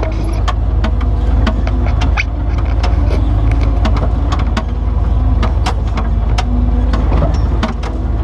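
Off-road rock crawler's engine running low and steady, heard from inside the open roll-caged cab, with many irregular clicks and knocks as the vehicle rattles over bare rock.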